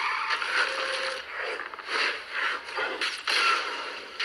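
Transformers-style robot transformation sound effect: a quick run of mechanical clicks, ratcheting and whirring gear noises in short, choppy bursts.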